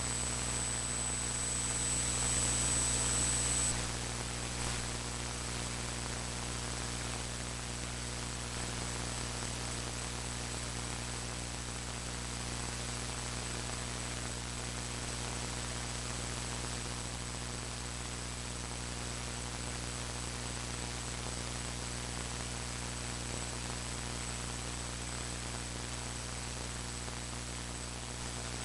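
Steady electrical hiss and mains hum from a faulty audio recording, with a thin high-pitched whine above it. It is a little louder for about the first four seconds.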